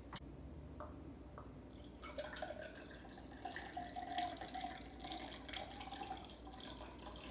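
Fresh-squeezed orange juice poured from a bowl through a small strainer into a tall glass. A soft trickle starts about two seconds in, after a few light clicks.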